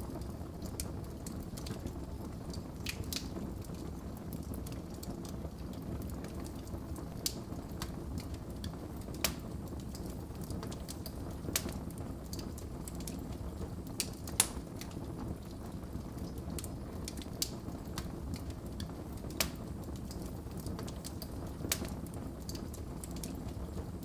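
Wood fire burning in a fireplace, with a steady low rumble of flames and scattered sharp crackles and pops every second or two, the loudest about halfway through.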